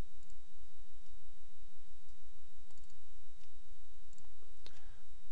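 A few computer mouse clicks, the clearest a little before the end, over a steady low hum and a faint high whine.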